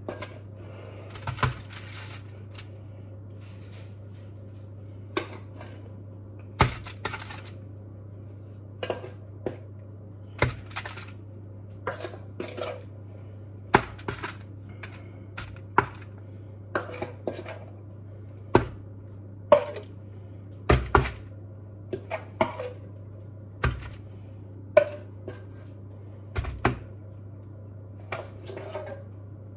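Metal tongs clacking and scraping against a stainless steel bowl as chicken wings are picked up and turned, in irregular sharp clacks about once a second, over a steady low hum.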